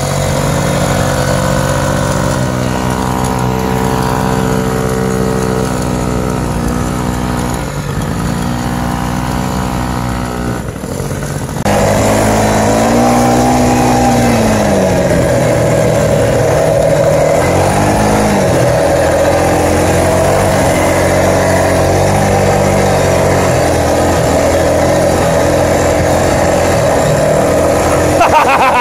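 Yamaha Breeze quad's small single-cylinder four-stroke engine running and revving as it is ridden over grass, its pitch rising and falling with the throttle. About twelve seconds in it jumps suddenly louder and closer, heard from the rider's seat.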